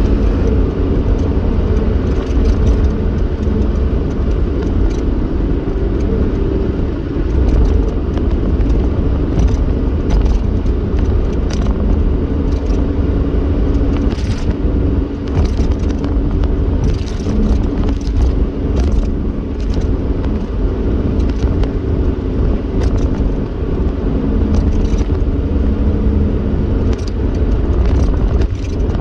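Car driving along a road, heard from inside the cabin: a steady low rumble of engine and tyres on the pavement, with a few brief clicks.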